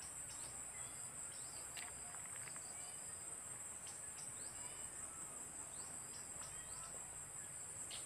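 A steady high-pitched insect chorus of crickets or similar insects, with short, rising bird chirps and calls scattered over it.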